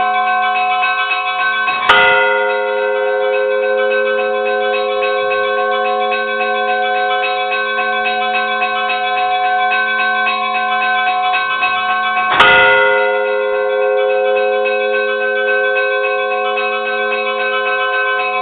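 Church bells ringing continuously, with two heavy strikes about ten seconds apart that ring out and slowly die away.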